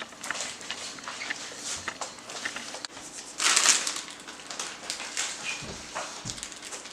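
Snacks being crunched and chewed close to the microphone, in small irregular crunches, with a louder noisy burst about three and a half seconds in.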